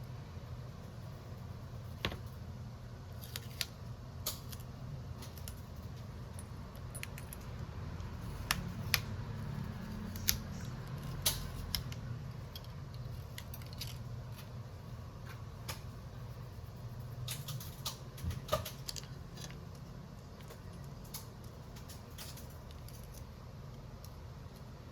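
Irregular sharp clicks and light taps of small repair tools and parts being handled while an OPPO Reno8 5G phone is opened for a screen replacement, over a low steady hum. The clicks come thickest about a third of the way in and again around three quarters of the way through.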